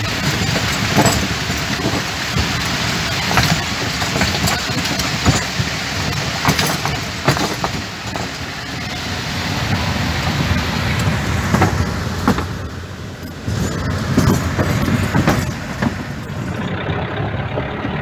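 4×4 jeep driving over a wooden-plank bridge, with its engine running and the cab rattling and knocking again and again throughout.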